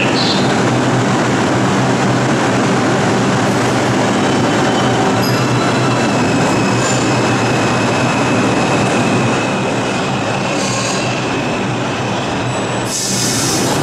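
R142 subway train pulling out of the station on the express track, its traction motors humming over a steady rumble of wheels on rail. A thin wheel squeal rises partway through, and the sound eases off about ten seconds in as the last car clears.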